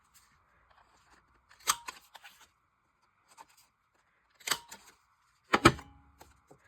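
Paper being cut to round off the corners of a paper pocket: three sharp snips spread over several seconds, with small rustling clicks between them.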